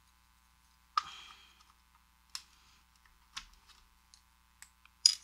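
Small metal parts of an American Lock 5200 padlock clicking and tapping as it is taken apart: five or six sharp, separate clicks, the loudest about a second in and another near the end.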